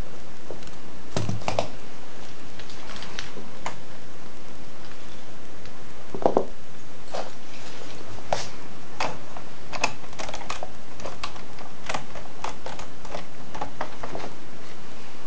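Irregular plastic clicks and clacks from a Lego model rifle being handled and worked, over a steady hiss. There are about twenty small clicks, with a heavier knock about six seconds in.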